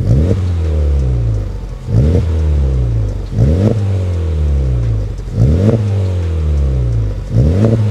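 A Honda Civic Type R's 2.0-litre turbocharged four-cylinder is revved through a freshly fitted Spoon Sports N1 cat-back exhaust. There are five quick throttle blips about two seconds apart, each rising sharply and falling back to idle. The tone is close to stock, "but a little bit better."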